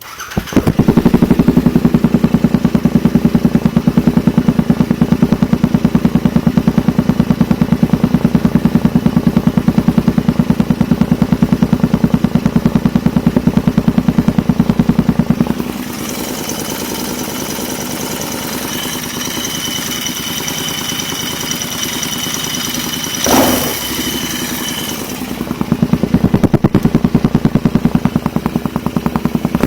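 Royal Enfield Interceptor 650's parallel-twin engine breathing through a Diablo aftermarket muffler, coming in suddenly and idling with a loud, even pulse. About halfway through the sound drops and thins for about ten seconds, with a brief swell in the middle of that stretch, before the loud pulsing idle returns.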